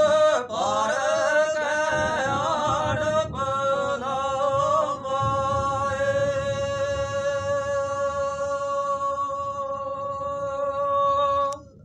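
Two men singing unaccompanied: an ornamented, wavering melodic line for about five seconds, then one long held note that stops suddenly near the end.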